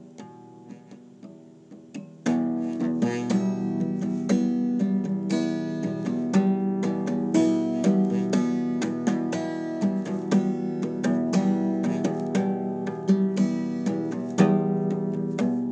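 Acoustic guitar playing without singing: a few soft, sparse notes, then about two seconds in it turns louder with quick, busy picking and strumming.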